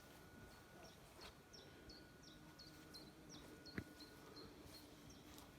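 Near silence with a faint small bird repeating a short, high chirp that drops in pitch, about three times a second, and one soft click about two-thirds through.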